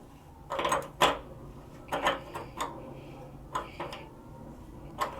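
Metal clicks and knocks in short clusters about every second and a half as a water heater heating element is tightened into its threaded port with an element wrench.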